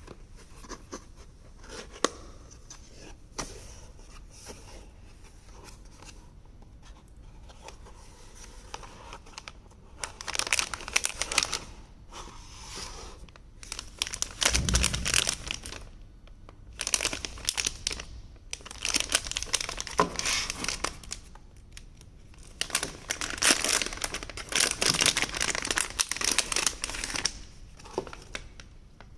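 Packaging being unwrapped by hand: crinkling and tearing in several bursts, mostly in the second half, with a dull thump about halfway through.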